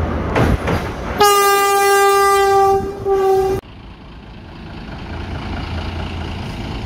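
Vande Bharat Express electric train-set running toward the camera over a railway bridge, then sounding its horn: one long steady blast about a second in, a brief second blast right after, then a sudden cut-off. A low steady hum follows.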